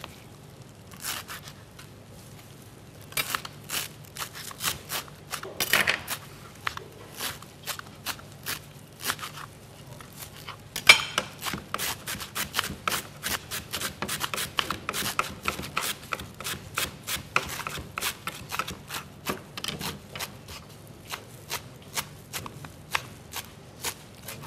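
Kitchen knife chopping fresh parsley on a cutting board: quick, irregular knocks, a few at first, then rapid and near-continuous from about three seconds in with brief pauses.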